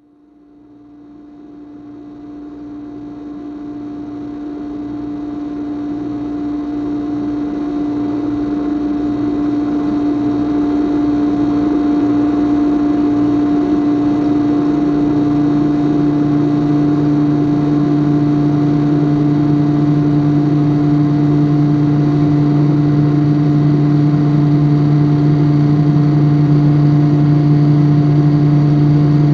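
A steady machine-like hum with hiss, carrying one strong steady tone and a fainter higher one, fading in out of silence over the first ten seconds or so. About halfway a deeper drone comes in and holds steady beneath it.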